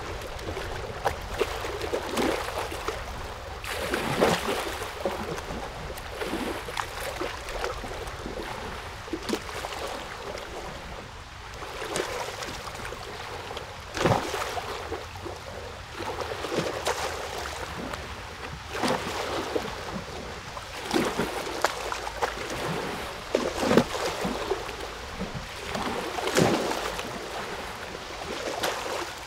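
Moving water, splashing and lapping in irregular swishes a second or two apart.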